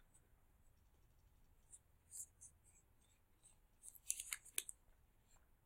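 Mostly near silence, broken by faint handling of snack packaging: a few short crinkles about two seconds in and a quick cluster of rustles and clicks around four seconds.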